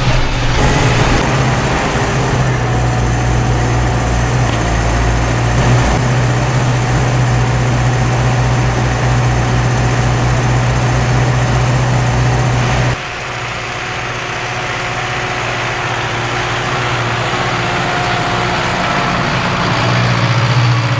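Zetor Forterra 115 tractor's turbodiesel engine running steadily under load during field cultivation, heard loudly from inside the cab. About two-thirds of the way in, the sound cuts abruptly to the tractor heard from outside, quieter, growing louder near the end as it comes closer.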